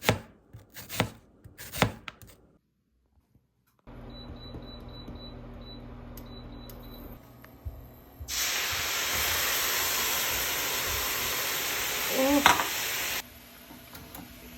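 Kitchen sounds: a few sharp clicks, then a steady hum with a quick series of high electronic beeps like appliance buttons. A loud, even hiss follows for about five seconds, of the kind made by sizzling or running water.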